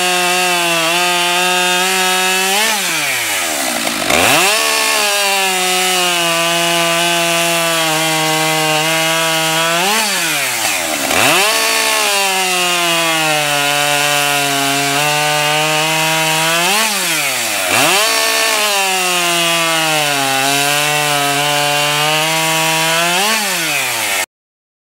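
Husqvarna 572 XP two-stroke chainsaw, 70.6 cc, with a 24-inch bar and full-chisel chain, cutting through a log at full throttle. The engine note holds steady and pulled down under load through each cut, then flares to a high rev as the chain breaks through, drops as the throttle is let off, and climbs again into the next cut. This happens four times, and the sound cuts off suddenly near the end.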